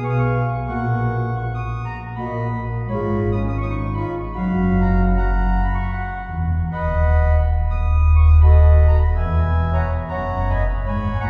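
Sampled Schnitger pipe organ of St. Michaelskerk, Zwolle, played through Hauptwerk: a lively A-major lute chaconne transcribed for organ. Quick-moving melodic lines run over held bass notes, and the bass swells loudest about eight seconds in.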